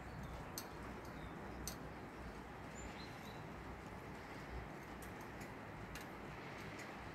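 Steady hiss of rain, with sharp drops ticking now and then and a few faint, high, short bird chirps about three seconds in.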